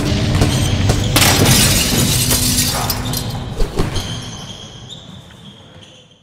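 Logo-reveal intro sting: produced music with impact hits and a glass-shatter effect, the shatter a bright burst about a second in. High ringing tones hang on as the sting fades out near the end.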